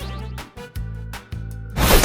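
Background music with a steady repeating bass line and light clicks. Near the end a loud, noisy whoosh sweeps down into a deep thud, a transition sound effect.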